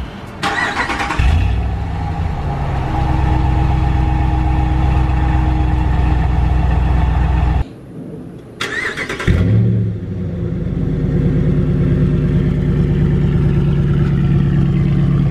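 Ram 1500's 5.7-litre HEMI V8 started and idling with its stock exhaust. After an abrupt cut it is cranked and started again with the muffler cut out, blips briefly, and settles into an idle with a heavier low drone.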